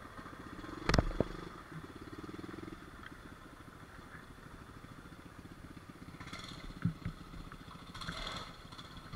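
Small pit bike engine running steadily on a trail ride, with a sharp clatter about a second in and two brief scraping hisses later on.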